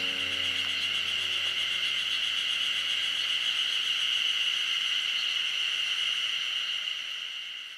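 Chorus of spring cicadas (haruzemi) calling together in one steady high drone. Faint notes of background music die away in the first second or two, and the chorus begins to fade out near the end.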